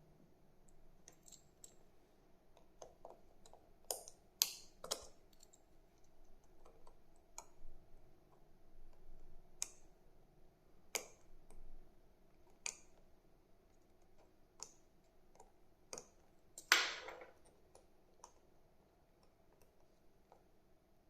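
Small tool clicking and scraping against a watch's plastic battery compartment while the battery sticker is picked loose: scattered sharp ticks, about a dozen, the loudest near the end. The sticker is tight, being peeled for the first time.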